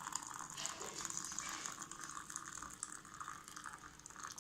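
Water running steadily, with a fine trickling hiss.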